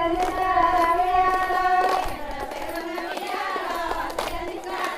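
A group of high voices singing together, holding long notes and moving between pitches.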